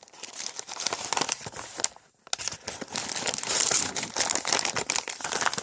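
Packaging crinkling and rustling as it is handled, with a brief pause about two seconds in.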